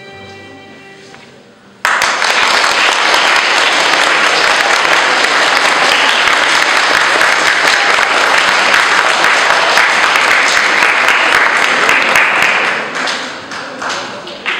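The last note of a violin duet dies away, then an audience bursts into applause about two seconds in. The clapping holds steady and thins out near the end.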